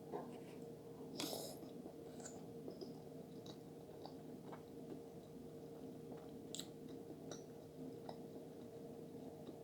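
Soft, close-miked chewing of a mouthful of cheesy lasagna: faint wet mouth clicks and smacks, a slightly louder one about a second in, over a faint steady hum.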